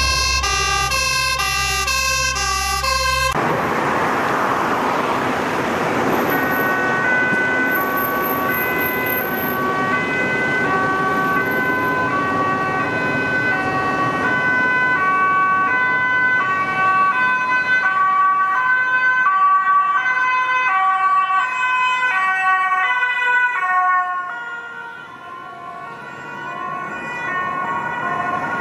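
A few seconds of intro music, then a Dutch ambulance's two-tone siren sounding in even alternation between two pitches over road traffic noise. The siren drops in loudness for a moment near the end.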